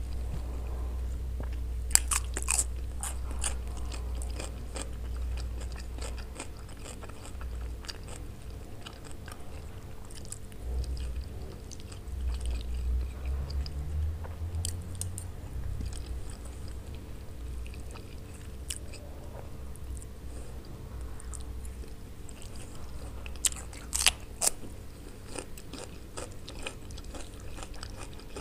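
Close-miked chewing and biting of browned macaroni eaten from a metal spoon. A few sharp clicks stand out, loudest about two seconds in and again around twenty-four seconds.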